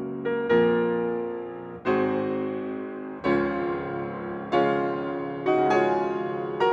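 Background music: slow piano chords, each struck and left to ring and fade, a new one about every second.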